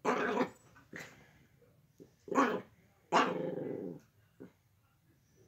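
Dog barking and growling in about five separate bursts, the longest a drawn-out growl of nearly a second about three seconds in.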